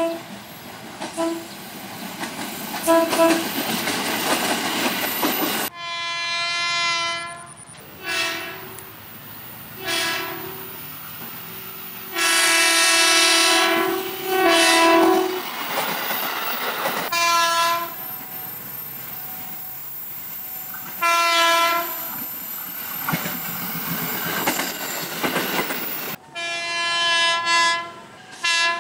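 A series of KRL Commuter Line electric train horn blasts, some short toots and some held for about two seconds. They sound over the steady rumble and clatter of passing trains.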